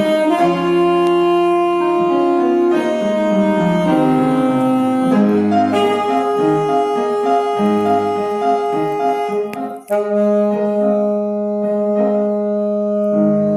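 Instrumental music: a wind instrument plays the melody in long held notes over piano accompaniment, with a short break between phrases about ten seconds in.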